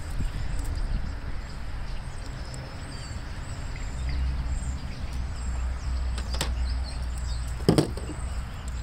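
Hand tools handled on a table: a light click, then near the end a sharp clack as a tool is picked up, over a steady low outdoor rumble.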